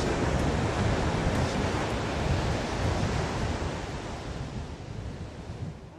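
Steady rushing noise with no distinct tones, gradually fading down toward the end.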